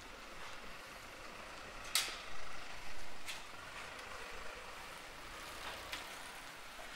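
Street ambience: a steady background hiss with a few sharp clacks, the loudest about two seconds in.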